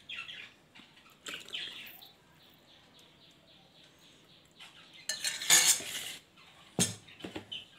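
Thickened milk poured from a vessel into a glass, splashing for about a second near the middle, then one sharp knock of kitchenware on a hard surface and a few small clinks.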